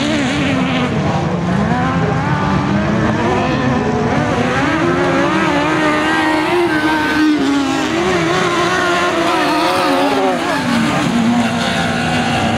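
Several autocross buggies' engines revving as they race on a dirt track, more than one at once, each pitch repeatedly climbing and dropping as they accelerate and back off.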